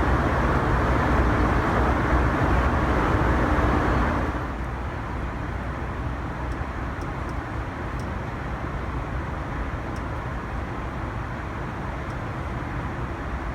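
Steady aircraft cabin noise inside a Boeing 747-400, a constant rush with a low rumble. It drops abruptly to a quieter level about four seconds in.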